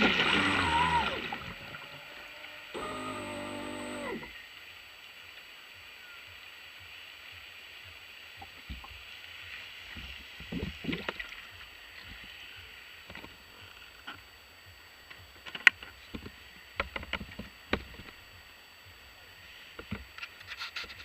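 RC boat's electric motor whining down as the throttle is let off, with a brief second burst of the motor about three seconds in. Then quiet water lapping with scattered small splashes and knocks.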